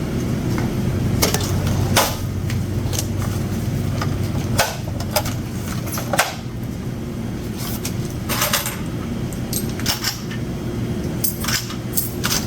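Scattered clicks, clinks and rustles of cash being handled at a cash register, over a steady low hum.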